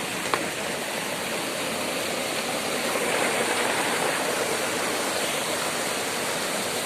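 Waterfall rushing, a steady, even roar of falling water, with one brief click just after the start.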